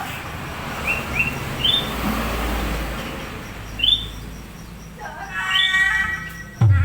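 A small bird chirps again and again, each chirp short and rising, over a steady hiss and a low hum. Near the end, music with held notes comes in, and a loud low thump sounds just before the end.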